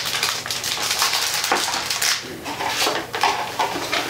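Packaging being handled: a motherboard's anti-static bag crinkling and cardboard boxes being moved about on a table, with a quick series of rustles and light knocks.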